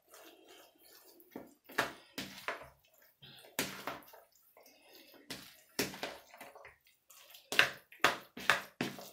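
A hand mixing a chopped salad dressed with mayonnaise in a bowl: irregular wet squelches and smacks, some in quick pairs.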